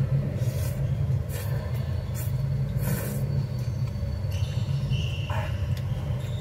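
Noodles slurped in several short pulls during the first half, over a steady low rumble.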